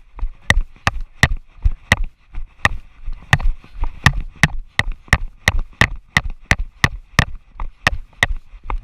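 An even series of sharp clicks or knocks, about three a second.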